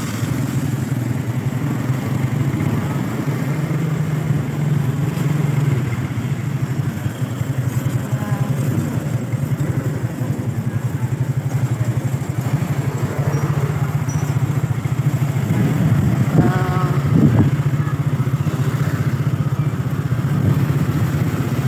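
Motorcycle engine running steadily under way, a constant low drone, with street traffic noise around it.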